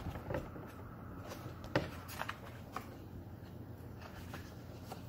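Soft rustling and a few faint taps from the pages of a picture book being handled, over a low steady room hum.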